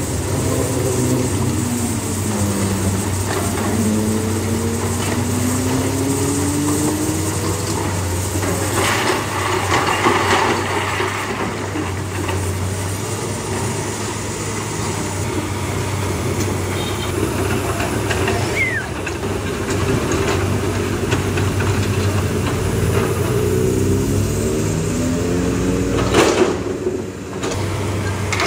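Hyundai crawler excavator's diesel engine running steadily, its note rising and falling under hydraulic load as the boom and bucket move, near the start and again about 23 seconds in.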